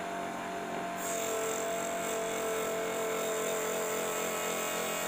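Low-wattage mini table saw running with a steady motor whine. About a second in, the blade starts cutting into a 3 mm acrylic sheet, adding a high hiss and a second steady tone, and the sound grows slightly louder.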